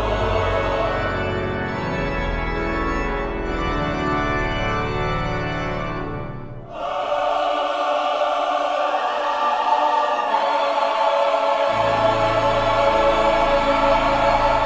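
Church organ and choir performing a hymn in sustained chords, with a brief dip and a new chord entering about seven seconds in.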